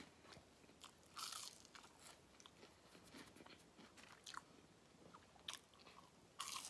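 Faint chewing of fried fish and french fries, with soft mouth clicks and two louder crunches, about a second in and near the end.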